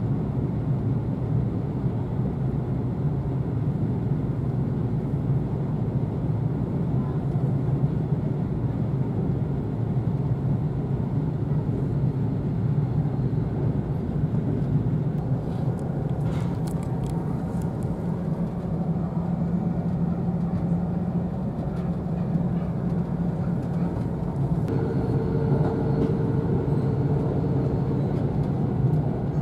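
Steady running noise inside the cabin of an E4 series double-decker Shinkansen: a low rumble of wheels on track, with a few sharp clicks about halfway through and a thin steady hum joining near the end.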